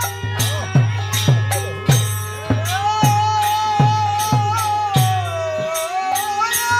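Instrumental passage of Bengali devotional kirtan (hari sangeet) music. A drum beats about twice a second with deep strokes that bend down in pitch, jingling percussion strikes on the beat, and a sustained, gliding melody line played over the top.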